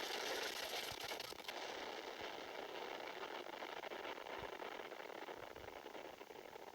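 Explosion sound effect's crackling, hissing tail, fading slowly.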